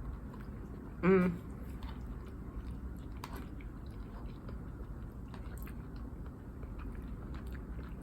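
Close-up chewing and soft mouth clicks of someone eating wide rice noodles (pad see ew). There is a short vocal sound about a second in.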